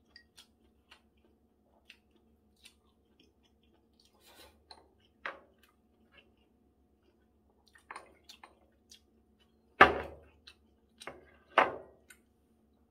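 Quiet eating at a table: faint chewing and small clicks of chopsticks against a porcelain rice bowl. Near the end come two loud, sharp knocks, a couple of seconds apart, as tableware is set down on the table.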